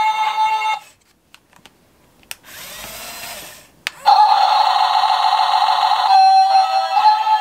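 A bright, steady electronic tune plays, breaks off about a second in, and comes back loud about four seconds in. In the quiet gap, a small toy motor gives a short whir, framed by two clicks.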